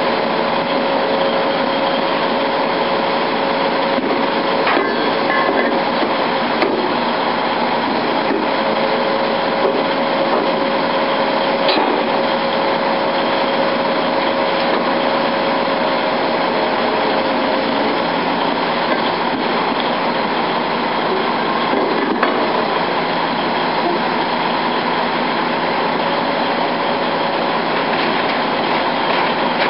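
Heavy crane diesel and hydraulic pumps running steadily under load, with a steady whine that fades out about two thirds of the way through. A few short knocks come through above it.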